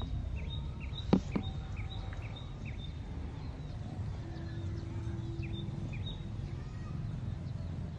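Outdoor background noise: a steady low rumble with a series of faint, short, high chirps in the first few seconds and one sharp knock about a second in.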